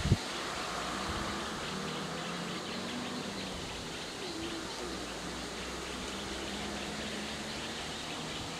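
Steady outdoor background noise, with a single sharp knock right at the start.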